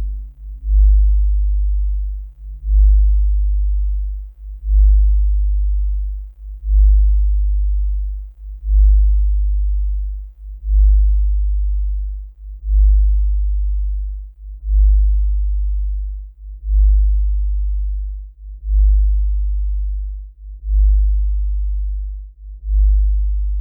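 A deep, low hum that pulses evenly about once every two seconds, each pulse swelling quickly and then fading.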